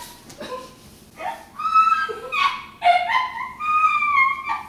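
A dog whining in long, high, wavering cries that start about a second in and rise and fall in pitch.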